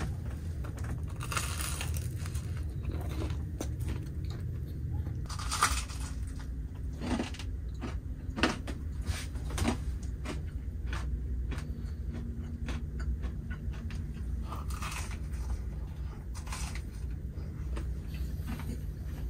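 Crunchy bites into a toasted hot sandwich, with scattered clicks and crunches over a steady low rumble.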